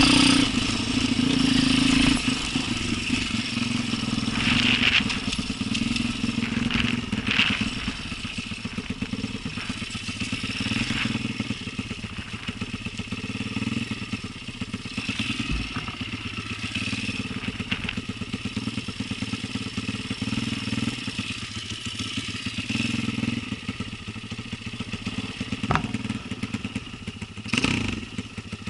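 Enduro motorcycle engine running under load, its pitch rising and falling with the throttle, loudest near the start. Occasional short knocks and rattles come through over the engine.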